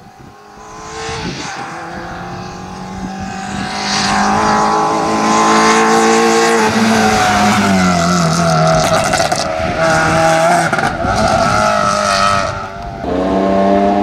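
Rally car at full throttle, getting louder as it approaches, the engine note rising and falling through several gear changes, with a short lift-off near the end before it pulls hard again.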